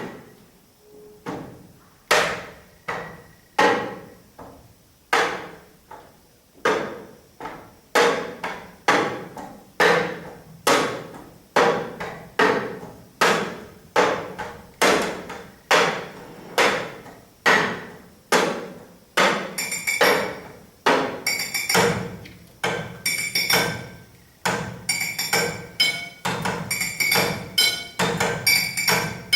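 Rhythmic percussion played by striking cutlery and glasses: sharp knocks at a steady pace of about one a second. From about twenty seconds in, the strikes come quicker and overlap, with a glassy ringing after each.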